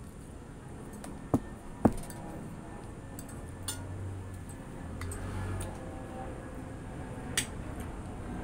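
Metal fork clinking against a plate of food a few times while eating, with two sharp clinks close together about one and a half seconds in and another near the end.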